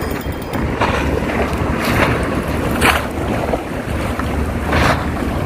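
Wind buffeting the microphone over open sea, a steady low rumble, with several short washes of water splashing against a concrete breakwater.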